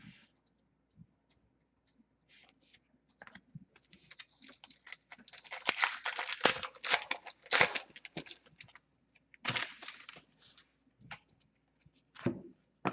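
Hockey card pack and cards being handled: crinkling and tearing of a pack wrapper with rustling of cards, busiest in the middle, broken by light clicks of the cards.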